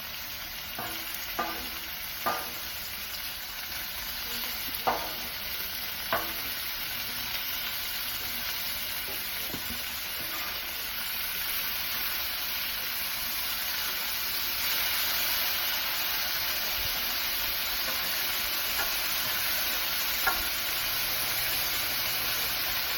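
Bacon-wrapped sausage-meat burgers frying on a Blackstone flat-top griddle: a steady sizzle that grows a little louder about two-thirds of the way through, with a few short sharp clicks in the first seconds and one more near the end.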